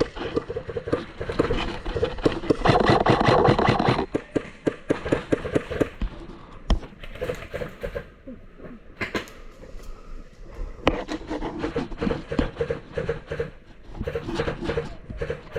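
Airsoft guns firing, a fast run of clicking shots for about the first four seconds, then scattered shots and short bursts.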